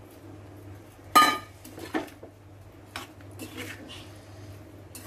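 A slotted steel spatula scraping and knocking against a frying pan while stirring taro pieces into a thick masala gravy. There is one sharp ringing clang about a second in, then a smaller knock and lighter scrapes.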